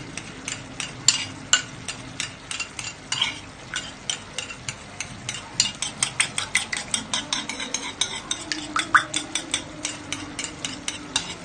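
A spoon stirring a liquid sauce of water, lemon vinegar and soy sauce, with a quick run of clinks and scrapes against the container, irregular at first and then about three or four a second.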